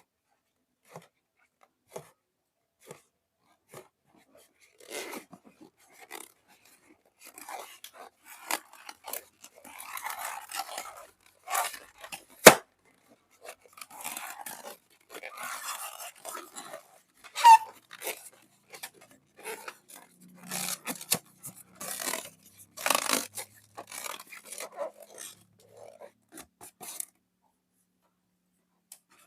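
Close-up crackling, scraping and crunching handling sounds in irregular bursts, with scattered sharp clicks and one loud sharp snap about twelve seconds in.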